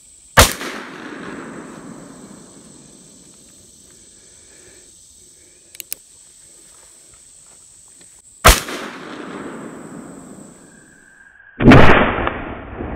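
Three shots from an 1858 Remington cap-and-ball black powder revolver: two sharp cracks about eight seconds apart, each trailing off in echo over a couple of seconds, then a third, heavier and longer blast near the end. A pair of faint clicks falls between the first two shots, over a steady high buzz of insects.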